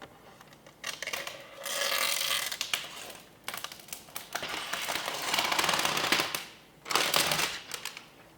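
Handling noise during PC assembly: three bursts of rustling and crackling with small clicks, as parts or packaging are handled.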